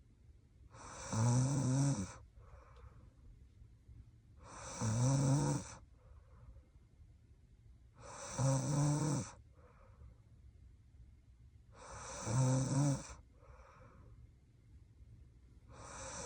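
A young woman snoring in her sleep: regular pitched snores about every four seconds, each lasting about a second, with a soft breath between them.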